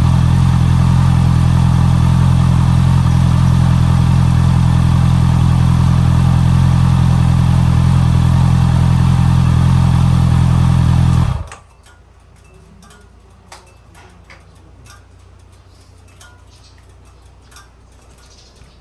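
Honda CB650R's inline-four engine running steadily through the stock exhaust, then shut off about eleven seconds in. Faint scattered clicks follow.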